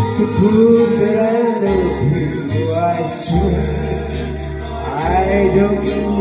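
A man singing into a handheld microphone over backing music, holding long notes above a steady bass line.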